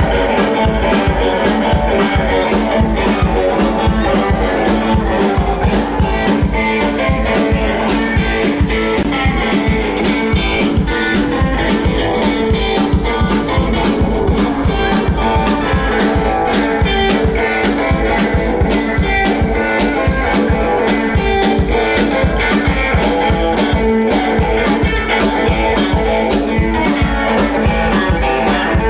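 Live blues band playing an instrumental stretch without vocals: electric guitar over bass guitar and drum kit, with a steady beat.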